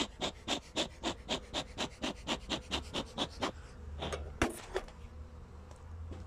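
Bee smoker's bellows puffing rapidly, about four quick puffs a second, stopping about three and a half seconds in, then two more puffs a moment later. Bees humming low underneath.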